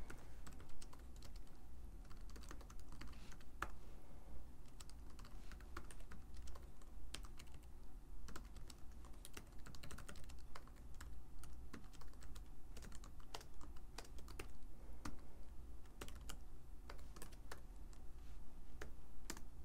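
Typing on a computer keyboard: irregular key clicks all through, some sharper than others.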